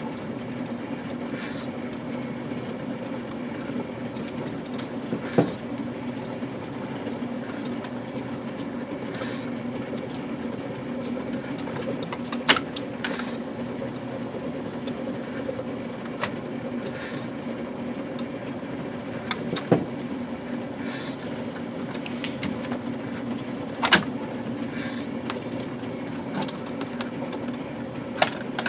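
Small electric motor of an O scale model crane car whirring steadily as it winches up a heavy load, straining under the weight. Sharp clicks or knocks come about six times.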